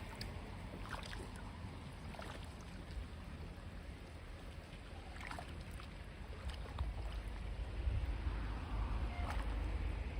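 Shallow paddy water sloshing and trickling as a hand-pulled chain weeder is dragged through a flooded rice field, with scattered small splashes. A low rumble of wind on the microphone runs underneath and grows stronger in the second half.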